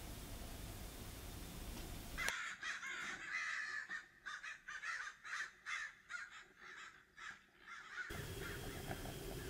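Crows cawing: many short, repeated caws over several seconds, between a steady hiss before and after.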